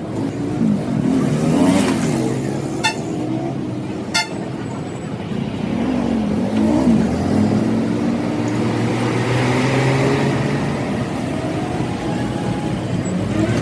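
Motor vehicle engines running, their pitch rising and falling as they rev, with two sharp knocks about three and four seconds in.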